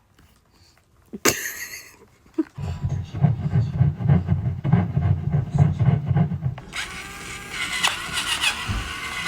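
A baby grinding its teeth: a rapid, irregular run of small squeaky clicks starting about two and a half seconds in, over a low hum that stops about six and a half seconds in.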